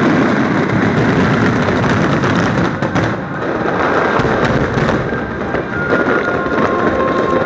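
Fireworks finale barrage: many shells bursting close together, merging into a continuous booming and crackling, with music playing underneath.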